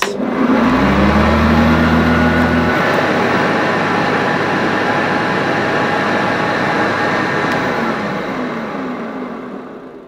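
Hoover Senior upright vacuum cleaner running steadily on carpet with no dust bag fitted, with a deep hum over the first few seconds; the sound fades away near the end.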